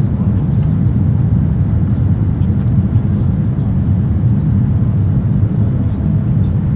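Steady low rumble of Boeing 787 cabin noise from the engines and the passing air, with no change in level.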